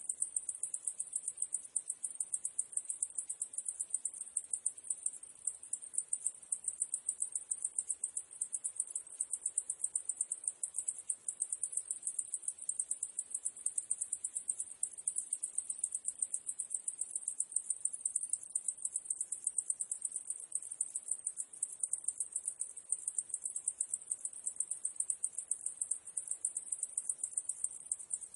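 Cicadas buzzing in a steady chorus: a very high-pitched, fast-pulsing drone that holds at one pitch without a break.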